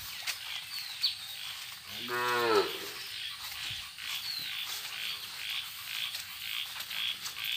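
A cow moos once, a short call of under a second about two seconds in.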